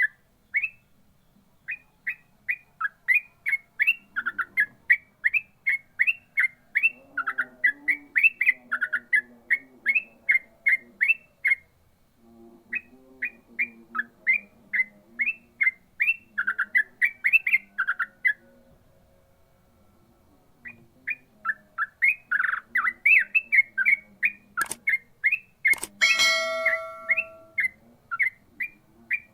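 Yellow-vented bulbul (trucukan) singing a fast run of short, sharp rising notes, about three or four a second, in long bursts broken by brief pauses. A short loud rasping noise cuts in near the end.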